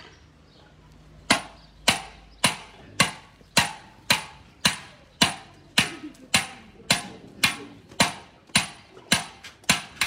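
Hand hammer striking a copper pot, a steady run of blows nearly two a second, each ringing briefly. The hammering starts about a second in.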